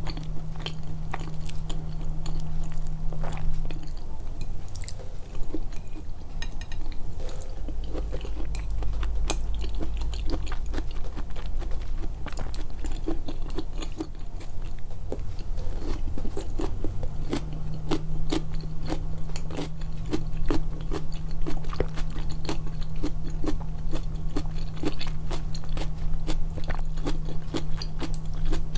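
A person chewing food close to the microphone, with the eating sounds emphasised: a rapid, continuous run of wet mouth clicks and smacks. A steady low hum sits under it for the first few seconds and again from about two-thirds of the way through.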